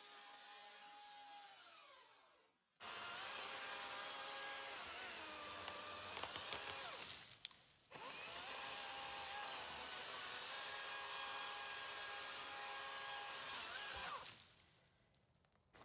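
Battery-powered chainsaw running in bursts, its electric motor whine dipping in pitch as the chain bogs down in wood. It spins down about two seconds in, starts again, stops briefly near the middle, runs again and winds down near the end.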